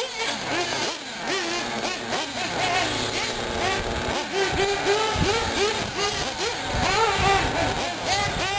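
Small nitro engines of 1/8-scale R/C buggies, a Hot Bodies D8 and an Associated RC8, revving up and down as they are driven, the pitch rising and falling over and over.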